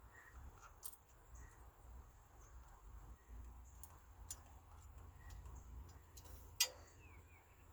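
A few faint, sharp metallic clicks of a wrench working the hose clamp on an ATV's carburetor intake boot, one clearly louder about six and a half seconds in.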